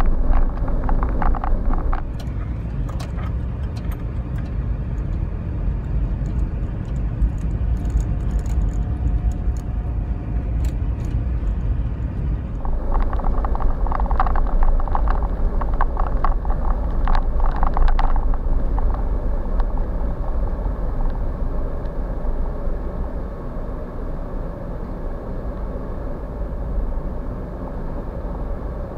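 Suzuki Every kei van driving on a snow-covered road, heard from inside the cabin: a steady low rumble of engine and tyres, with a stretch of crackling clicks partway through.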